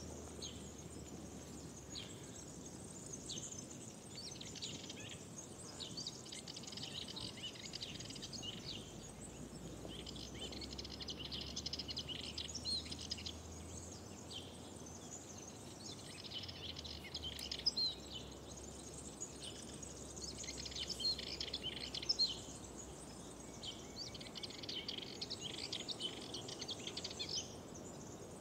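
Songbirds singing: bursts of high chirping phrases come every few seconds, several overlapping at times, over a faint low background noise.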